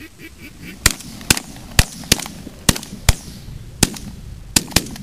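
A ragged volley of about nine shotgun shots from several hunters firing together, irregularly spaced, starting about a second in.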